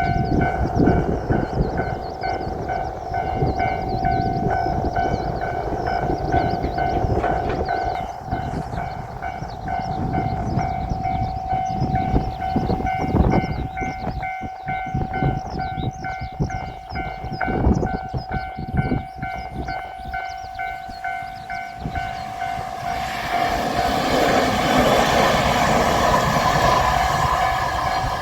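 Level-crossing alarm ringing as a JR Shikoku 8000 series electric express train passes with clattering wheels. The alarm stops about three-quarters of the way through, and a steady rushing noise follows.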